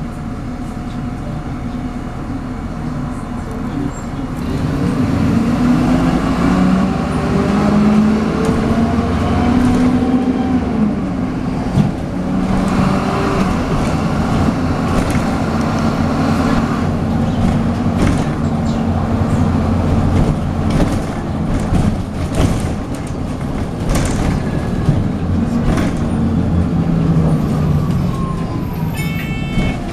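MAN 18.240LF bus's diesel engine heard from on board, pulling hard with its pitch rising through the gears twice, carrying the whooshing turbo whine that gives these buses the "hoover" name. A few short high beeps sound near the end.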